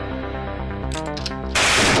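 Background music with held notes; about one and a half seconds in, loud rapid machine-gun fire sound effects suddenly break in.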